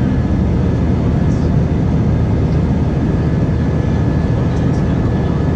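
Airbus A320-200 jet engines and rushing air heard inside the passenger cabin as the airliner climbs out after take-off: a loud, steady rumble, heaviest in the low range, with a faint high steady whine on top.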